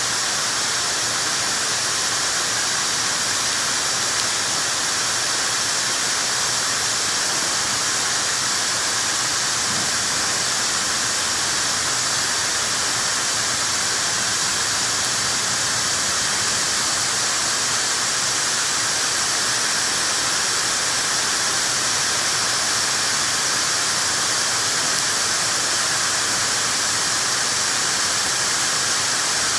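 Dyson hair dryer running steadily, a continuous rush of blown air with a faint high whine.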